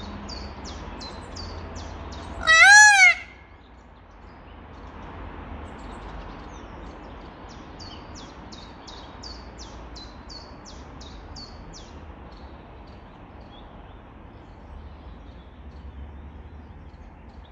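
Bird calls: runs of quick, high, downward-sweeping chirps at about three or four a second, and one loud rising-and-falling call about two and a half seconds in, over a low steady rumble.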